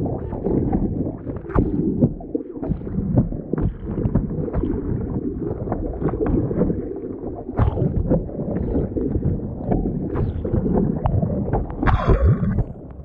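Choppy water splashing and sloshing against the nose of a prone paddleboard as it is arm-paddled into the wind, with wind buffeting the microphone. Near the end a wave of spray washes right over the microphone.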